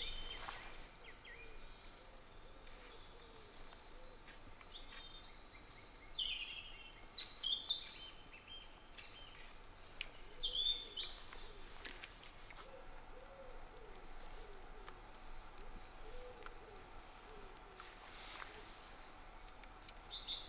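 Woodland birdsong: a songbird sings short, high, warbling phrases several times, loudest about six to eight and ten to eleven seconds in, with a low repeated call in the background in the second half.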